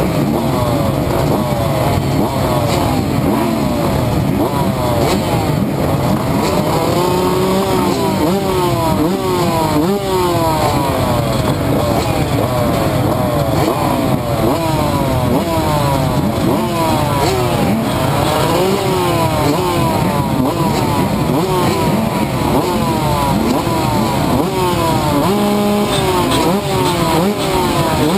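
A row of motocross bikes, a TM MX 125 two-stroke closest, revving together behind the start gate while waiting for it to drop. Many throttles are blipped over and over, so the engine notes rise and fall in overlapping waves.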